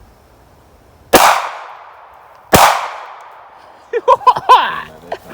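Two gunshots about a second and a half apart, each followed by a long fading echo, then a brief shouted voice.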